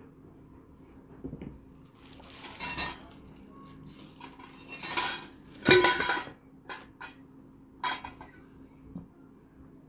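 Black perforated metal mesh desk organizers being unpacked: rustling and scraping, then a loud metallic clink a little before the six-second mark and a few lighter knocks as the pieces are set down.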